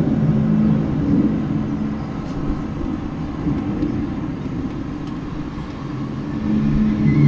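A low, steady droning hum with several held tones, thinning out in the middle and swelling again near the end: one of the unexplained 'strange noises' heard outdoors, whose source is not known.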